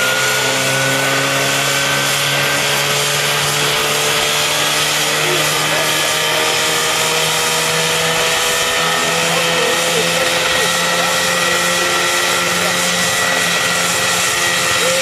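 Homemade single-seat helicopter's engine running hard with its rotor turning, a steady drone whose pitch climbs slowly as it builds power for lift-off.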